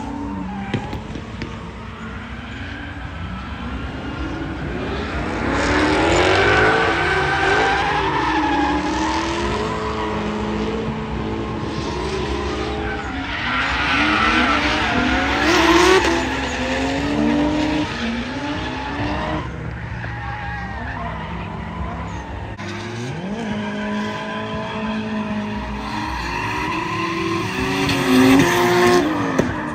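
Cars driven hard around a track, engines revving up and down with tyres squealing as they slide. The sound swells and fades as cars pass, loudest about six seconds in, again around fourteen to sixteen seconds, and near the end.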